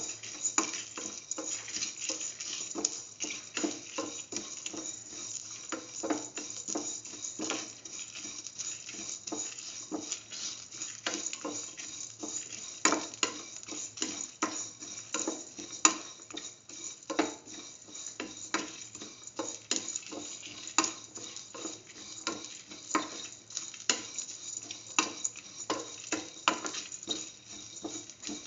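Spatula scraping and tapping against a steel pan in quick, irregular strokes as onions and whole spices are stirred in hot oil, over a steady sizzle.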